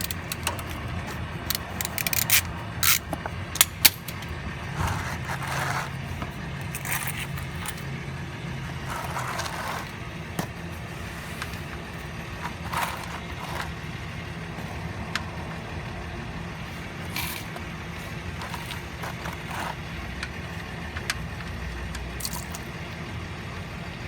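Sharp metal clicks and scraping of a 14 mm wrench on a car's oil drain plug as it is loosened and removed, with the loudest clicks a few seconds in, over a steady low hum.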